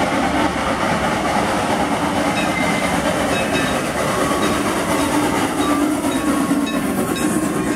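Narrow-gauge steam locomotive approaching and running past at close range: a steady, loud rumble and clatter of its running gear and wheels on the rails.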